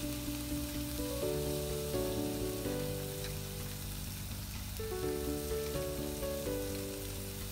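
Beef chuck eye roll steaks sizzling steadily as they sear in a frying pan, under slow background music of held notes.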